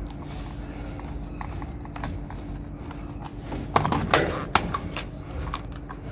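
Metal tools clinking and knocking against a scrapped appliance's metal parts as they are unscrewed, with a cluster of sharp knocks about four seconds in over a faint steady hum.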